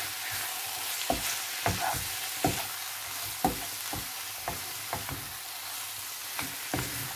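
Diced raw chicken breast, fried onion and spices sizzling in a frying pan while a wooden spatula stirs them. The spatula's strokes knock and scrape against the pan about once or twice a second over a steady hiss.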